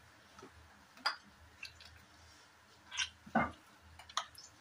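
Scattered clinks and knocks of a steel spoon against a ceramic bowl as roasted tomatoes and brinjal are added and worked. The loudest is a soft thud about three and a half seconds in, and a few quicker ticks come near the end.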